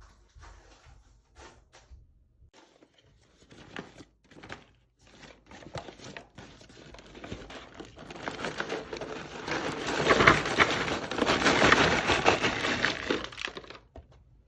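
Crinkling and rustling of wrapping being handled: scattered crackles and taps at first, then from about eight seconds in a dense, loud crinkling for several seconds that stops shortly before the end.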